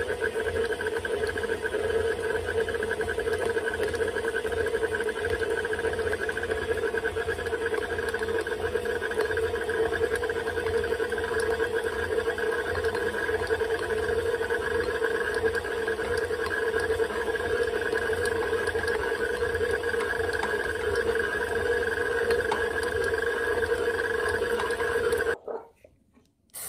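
Electric stand mixer kneading bread dough with its dough hook, the motor running with a steady whine and hum. It cuts off abruptly near the end.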